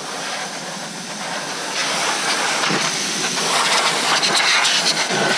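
Compressed air hissing steadily from a spray can, blown around the coil-on plugs and valve cover of a Ford 3-valve V8 to clear out dirt before the coils are pulled. The hiss grows louder about two seconds in and flutters briefly a few times.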